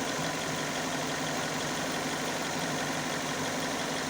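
Hyundai i40's 2.0-litre G4NA four-cylinder petrol engine idling steadily after a full rebuild, running evenly.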